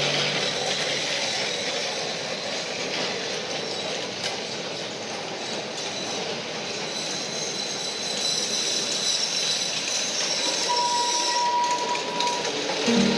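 Funicular cars running on their rails up and down a steep street, a steady rolling rumble and rattle of steel wheels on track. A high squeal from the wheels comes in about halfway and stops shortly before the end.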